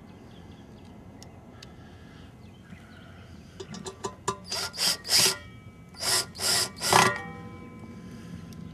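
Parts of a vending machine being worked together during assembly: a few light clicks, then four or five loud rasping, scraping strokes in the second half, the last one leaving a brief ringing tone.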